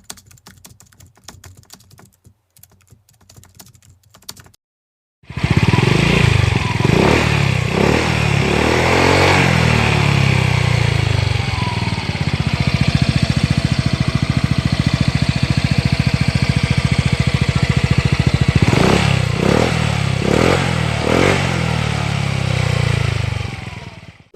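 Faint clattering for the first few seconds, then a Yamaha Mio Soul i 125 scooter's 125 cc single-cylinder four-stroke engine running loud through an Exos X-6 aftermarket exhaust with built-in silencer. It holds a steady fast idle and is revved up and back down several times, about a third of the way in and again near the end, before fading out.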